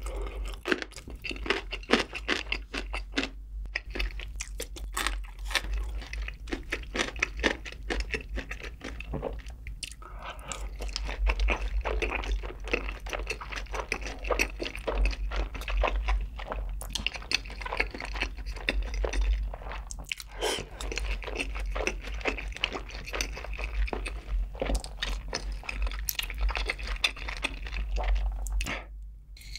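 Close-miked chewing of sweet-sauced Korean fried chicken (yangnyeom chicken): a steady run of crunchy, wet mouth sounds and bites.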